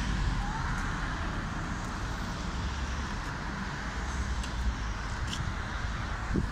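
Steady street traffic noise with a low rumble, with no single event standing out.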